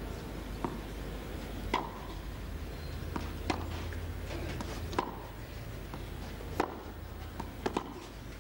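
Tennis ball being hit back and forth in a clay-court rally: sharp racquet strikes roughly every one and a half seconds, with a quick cluster of hits near the end, over a steady low hum.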